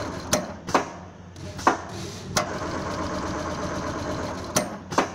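Automatic pattern sewing machine stitching a padded leather panel: a steady mechanical running hum. Three times it stops with a pair of sharp clicks, goes quieter for a moment, then runs again.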